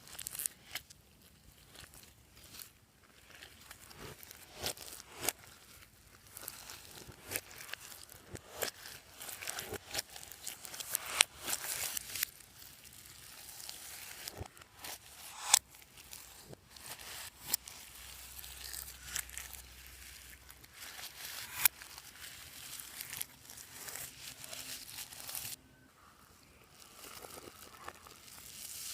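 Hands squishing and mixing clear slime with add-ins, making irregular sticky clicks, pops and crackling.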